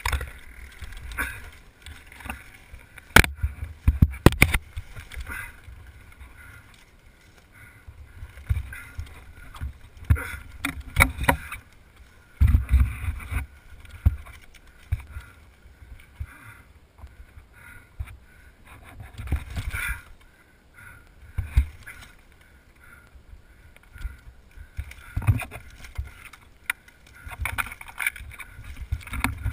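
Irregular knocks, clicks and scrapes from a crashed ATV tangled in brush, as branches and plastic bodywork clatter against each other. There are bursts of low rumble, and the sharpest clusters of knocks come about three to four seconds in and again around ten seconds in. No steady engine note is heard.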